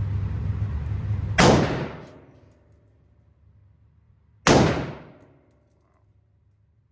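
Two gunshots about three seconds apart, each a sharp crack with a short echoing tail.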